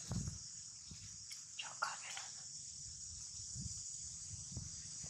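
Steady high-pitched chorus of insects buzzing outdoors, with a couple of brief chirps about a second and a half in and a few soft low thumps.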